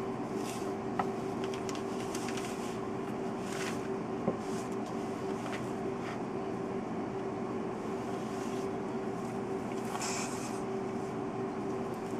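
Steady machine hum with one constant low tone. A few faint papery rustles come as a thawed rat is dragged over newspaper lining with metal tongs, and there is a small click about four seconds in.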